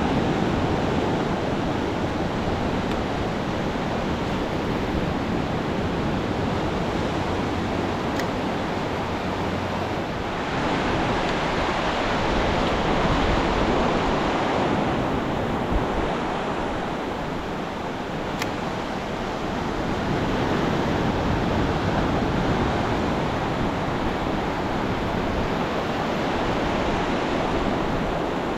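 Ocean surf breaking and washing up the beach: a steady rush that swells louder twice.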